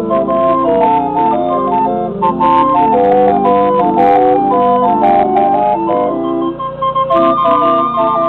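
Band organ on a traveling organ truck playing a lively tune: held organ-pipe notes and chords under a moving melody, with regular percussive beats.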